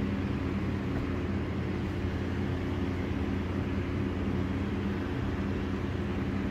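A steady low mechanical hum with a few held low tones, unchanging throughout, like a running fan motor.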